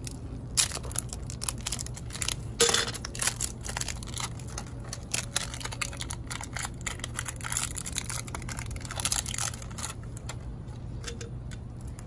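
Handling noise as D batteries and a black plastic battery tube are worked with by hand: a run of irregular clicks, knocks and rustles, the sharpest about two and a half seconds in, easing off in the last couple of seconds.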